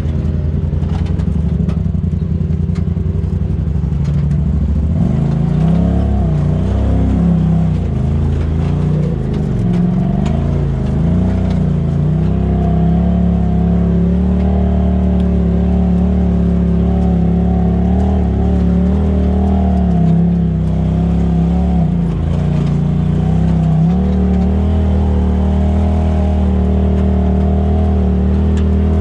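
Polaris RZR Turbo side-by-side's engine heard from inside the cab as it is driven over a rocky trail. The engine pitch rises and falls repeatedly as the throttle is worked on and off.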